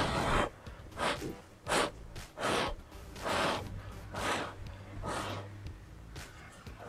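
A person blowing hard through the mouth onto wet acrylic pour paint on a coaster tile, spreading it into a bloom: a series of short puffs of breath, about one a second, the first the strongest.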